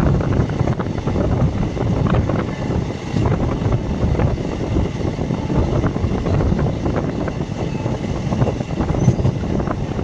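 Moving passenger train heard from its open doorway: a steady low rumble of wheels on the rails with a scatter of small knocks, and wind rushing past the microphone.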